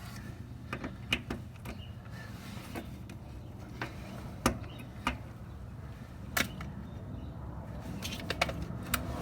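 Scattered metallic clicks and clinks of sockets and tools being handled and tried on the bolts, with no powered tool running, over a low steady hum.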